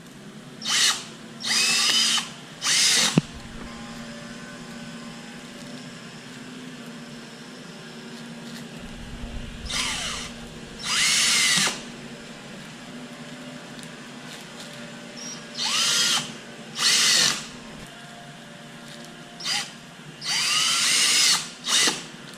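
Power drill running in about ten short bursts in three groups, its motor whine rising and falling with each pull of the trigger.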